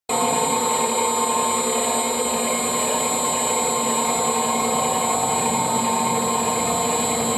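TBM Reference Cutter RC 800 vegetable cutting machine running empty, its feeder disc and horizontal knife disc turning in opposite directions. A steady machine hum with several unchanging tones.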